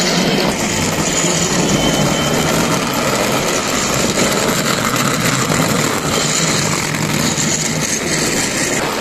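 Battery-powered toy trains running on plastic track: a steady whir of small electric motors and gears.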